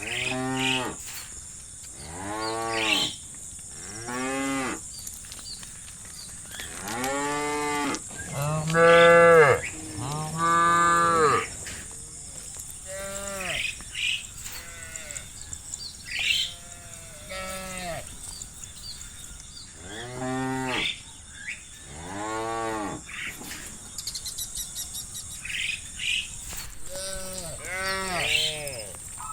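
Several cattle mooing in turn, a drawn-out moo every second or two with some calls overlapping; the loudest two come about nine and eleven seconds in.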